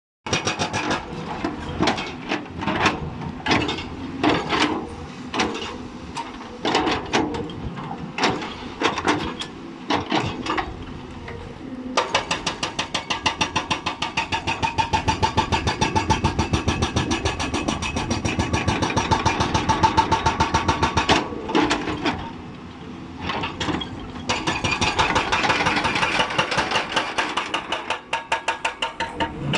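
Hydraulic breaker on a Hyundai 290 excavator hammering rock over the running diesel engine. Irregular knocks come first, then fast, even hammering that stops briefly and starts again.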